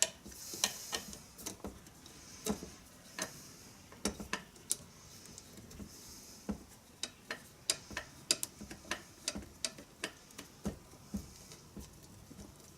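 Irregular light metal clicks and taps as a stuck part of an animatronic head mechanism, freshly sprayed with WD-40, is wiggled back and forth to free it.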